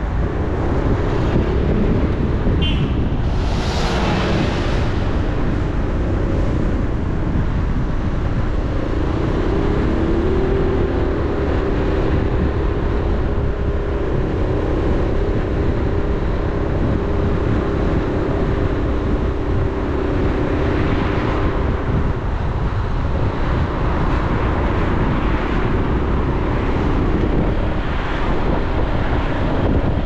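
Car on the move: a steady engine drone over low road rumble, shifting slightly in pitch, with a brief rush of noise about four seconds in.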